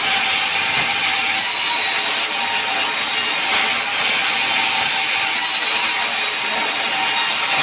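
Sawmill saw cutting pine log into boards: a steady, unbroken high hissing whine of blade through wood, with a faint steady hum underneath.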